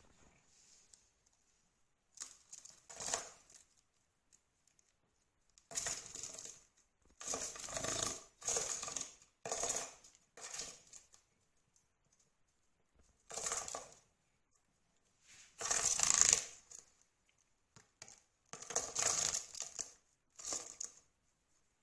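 About a dozen short bursts of rustling and scraping, each under a second, with quiet gaps between them.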